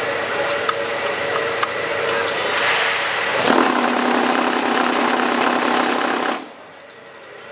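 QTJ4-26A semi-automatic concrete block-forming machine running with a steady mechanical hum. About three and a half seconds in, a louder, lower buzz starts, which cuts off suddenly near the end, leaving a much quieter hum.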